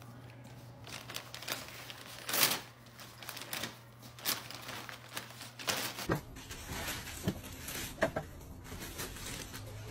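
A dog tearing and nosing at gift wrapping paper: scattered crinkles and rips, the loudest about two and a half seconds in. About six seconds in, the sound changes to the rustle of a clear plastic cover being pulled off.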